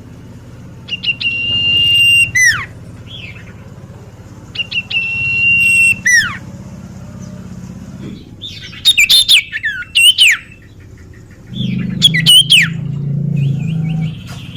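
Songbird calls, gacor lure-recording style. A held high whistle breaks into quick falling notes, twice, then come bursts of rapid falling whistled notes over a low background hum.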